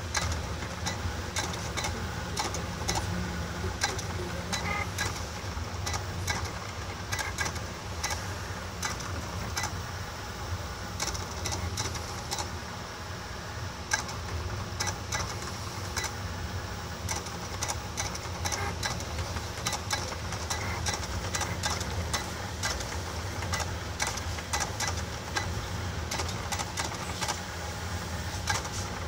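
Desktop cutting plotter fitted with a marker pen, drawing PCB traces on paper. Its stepper motors whir steadily as the pen carriage shuttles along the rail and the rollers feed the paper back and forth, with frequent short clicks throughout.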